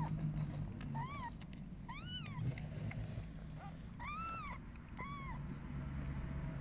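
Newborn kittens mewing: about five short, high-pitched cries, each rising and falling, spaced roughly a second apart, over a low steady hum.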